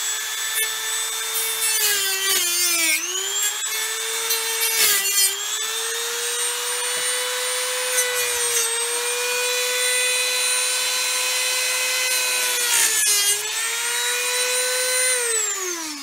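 Dremel rotary tool with a cut-off disc, running at high speed with a steady high whine. The pitch sags briefly several times as the disc bites into the cracks of an old steering wheel's rim, opening them up for epoxy filler. It winds down in falling pitch near the end.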